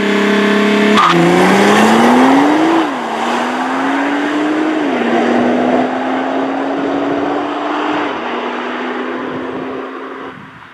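2017 Nissan GT-R's twin-turbo 3.8-litre V6 held at launch-control revs, then launching about a second in and accelerating hard away through the gears. The pitch climbs and drops at three quick upshifts, and the sound fades as the car pulls into the distance.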